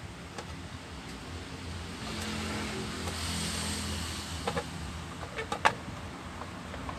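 A low hum and hiss swell up and fade over about two seconds, then a few sharp clicks and knocks from handling an amplifier's parts during reassembly. The loudest click comes about five and a half seconds in.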